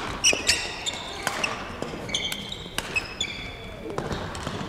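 Badminton rally: sharp cracks of rackets striking the shuttlecock, about a second or more apart, with short high squeaks of shoes on the court floor.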